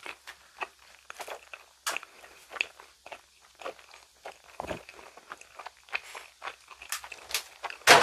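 A mouthful of frog-shaped gummy jelly being chewed close to the microphone: irregular short, wet mouth clicks and smacks, with a louder smack right at the end.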